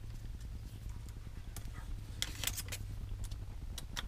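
Small screwdriver working the tiny screws out of a plastic GoPro Karma Grip camera harness: scattered light clicks and ticks of the driver tip and plastic parts, with a quick cluster of sharper ticks about two seconds in, over a steady low hum.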